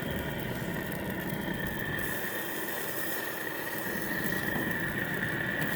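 Propane gas grill burning with burgers sizzling on the grate: a steady hiss with a thin, steady high tone through it.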